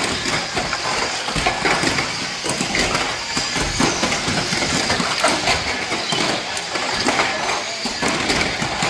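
A pack of radio-controlled banger race cars with ABS plastic bodies racing on a carpet track: a steady whirr of motors and tyres, with frequent sharp clacks as the cars knock into each other and the track barriers.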